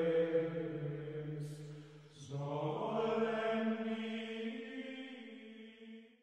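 Slow background music with long held notes. A new phrase begins about two seconds in, and the music fades out at the end.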